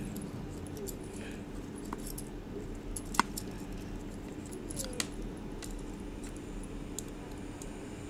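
Scattered light clicks and ticks of a white power cable and a plastic three-pin plug being handled as the blue wire is fitted to its terminal, with a sharper click about three seconds in and another about five seconds in, over a faint steady hum.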